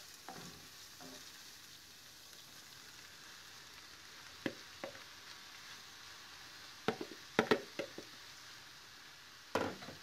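Onion, garlic and red pepper frying with a faint steady sizzle in a frying pan. From about halfway on, sharp knocks and clatters, a cluster of them a little later and a loud one near the end, as sliced oyster mushrooms are tipped in from a plastic bowl and stirred into the pan.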